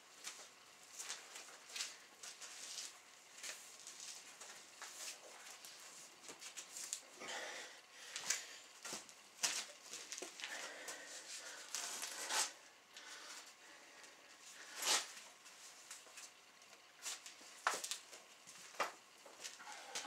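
Fox skin being pulled by hand off a hanging carcass: irregular crackling and tearing as the hide separates from the meat, with scattered sharp snaps and rustles.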